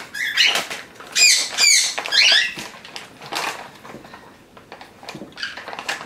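Pet parrot giving a string of short, high, squeaky chirps, several in quick succession with sharp rises and falls in pitch. There is a lull about four seconds in, and a few more chirps come near the end.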